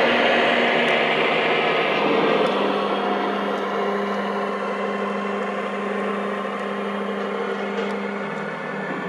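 Lionel O gauge model freight train running on the track: a steady electronic sound-system engine drone with the rumble of wheels on the rails, gradually getting quieter.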